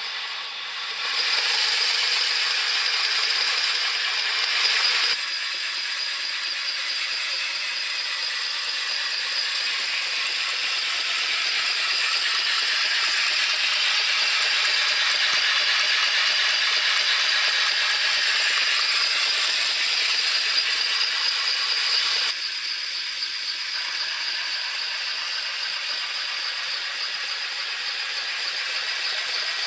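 Bassett-Lowke GNR Atlantic 4-4-2 live-steam model locomotive (3¼-inch gauge) running under steam: a steady hiss of steam with a fast rattle. It gets louder about a second in, then eases a little around five seconds and again about twenty-two seconds in.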